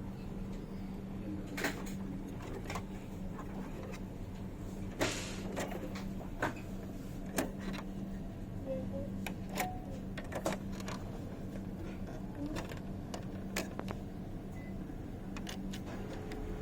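HP LaserJet M107 laser printer running with a steady low hum and irregular sharp clicks and knocks from its mechanism: the grinding noise that marks a fault in the printer's drive.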